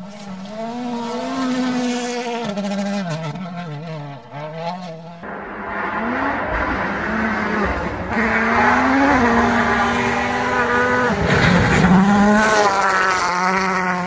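World Rally Car engines at full throttle on gravel stages, the pitch rising and dropping again and again with each gear change. About five seconds in the sound changes abruptly to a louder mix of engine and gravel spray.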